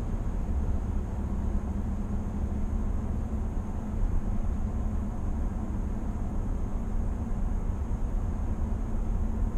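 Steady cabin noise of a 2020 GMC Sierra 1500 AT4 pickup cruising at highway speed: an even, low road-and-tyre rumble that does not change.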